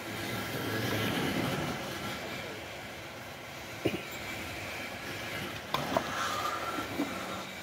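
Steady low hum of workshop machinery, with a few sharp clicks and knocks: one about four seconds in and a pair a couple of seconds later.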